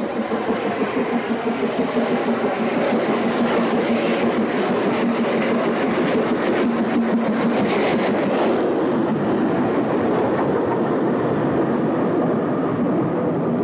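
GWR Castle Class steam locomotive passing at speed with a train. Its exhaust beats pulse for the first couple of seconds, then give way to a steady rumble and clatter of wheels on rail joints as the coaches run past close by.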